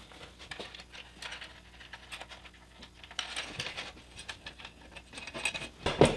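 Small metallic clicks and taps of hex nuts and washers being fitted by hand onto the bolts along an aluminium angle-iron rail, with a few louder knocks near the end.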